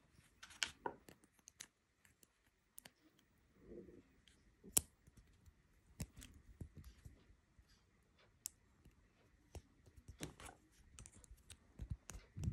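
Faint handling sounds: small plastic clicks and scrapes as fingers press a tiny circuit board into a blue plastic brick, with one sharper click about five seconds in.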